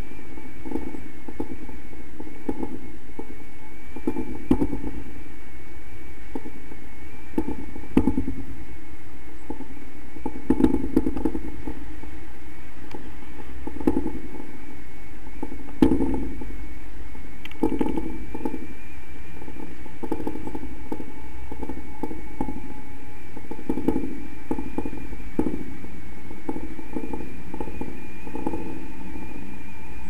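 Wind rushing over the camera microphone in paraglider flight: a steady low rumble with irregular louder gusts, and a faint steady high whine underneath.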